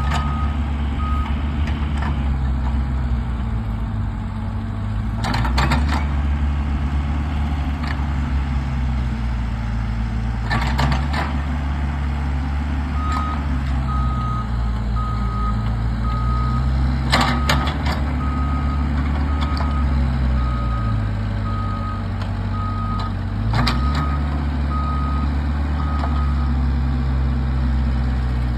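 Diesel engine of a compact earthmoving machine working, revving up and down under load. A reversing alarm beeps about once a second through the middle stretch, and there are a few sharp metallic clanks.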